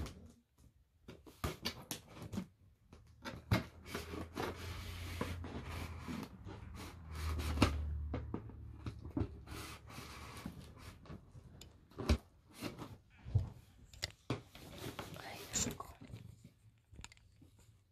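Scissors cutting open a white cardboard box, with scraping and rubbing during the cutting and a scatter of sharp clicks and knocks as the box is handled.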